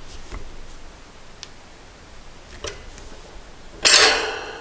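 Metal hand tools and bike parts being handled: a few light clicks, then a loud metallic clang with a brief ringing tail near the end.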